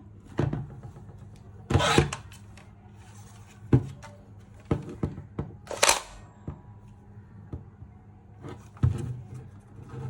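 Scattered clicks and knocks from handling a Nerf Rival blaster, with two short hissing bursts about two seconds and six seconds in.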